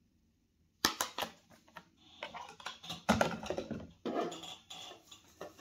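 Cook-set plates and bowls knocking and clicking together as they are handled. A quick run of sharp knocks comes about a second in, followed by scattered clatter.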